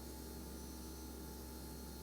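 Vestel Puzzle NF655 EX refrigerator running with a steady hum and faint steady tones over hiss: the persistent operating noise its owner finds disturbing and reports as a fault.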